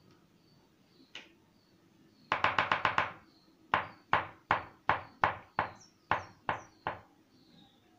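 A single sharp click, then a fast run of about six sharp clicks, then about nine more evenly spaced at roughly three a second, each dying away quickly. These are hand-made test sounds for a homemade microphone built from an old headphone speaker.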